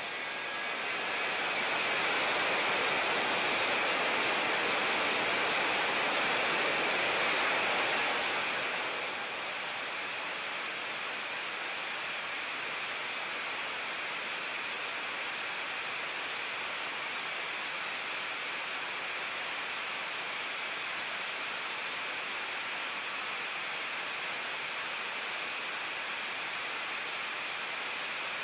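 Jet engine running on a test stand: a steady rushing noise with a hiss band high up, swelling louder about a second in and settling back down around nine seconds.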